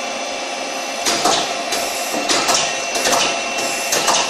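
Doosan CNC lathe tool turret indexing during a tool change to T03: a run of uneven mechanical clunks and whirs starting about a second in, over the steady hum of the running machine.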